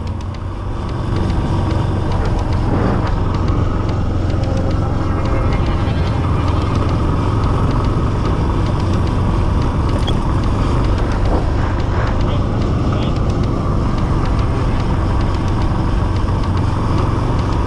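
Yamaha XT 660's single-cylinder engine running steadily as the motorcycle cruises along a street, heard from an on-board camera together with road and wind noise.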